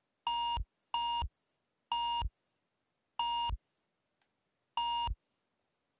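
Sonar-style electronic beeps from the Submarine Tracking System BASIC program running on a MEGA65: five short buzzy beeps, each about a third of a second, with the gaps between them growing longer.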